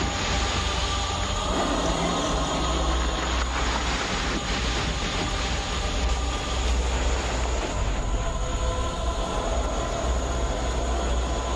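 Bulldozer's diesel engine running with a steady deep rumble as it pushes down trees and brush.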